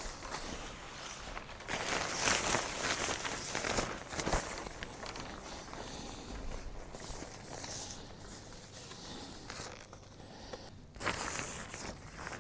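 Footsteps with rustling, in uneven spells of shuffling noise that are loudest about two to four seconds in and again near the end.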